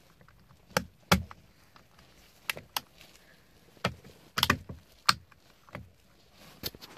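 Irregular sharp plastic clicks and knocks, about eight to ten of them, loudest a little after one second and around four and a half seconds in, as the steering column module and airbag clock spring of a BMW E60 are handled and pressed into place by hand.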